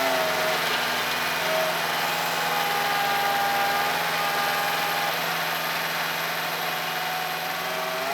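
Bobcat skid steer engine running steadily at an even speed.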